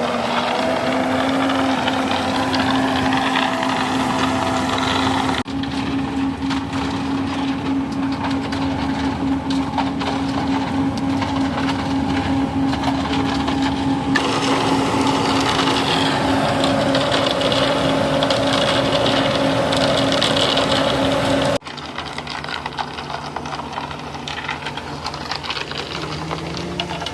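Heavy construction machinery running steadily with a constant engine drone. The sound changes abruptly twice, about five seconds in and again near twenty-two seconds, where the pitch drops.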